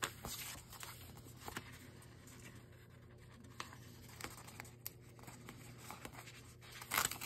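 Faint rustling and crinkling of paper sticker sheets being handled, with small scattered clicks as stickers are peeled from their backing; a louder rustle near the end.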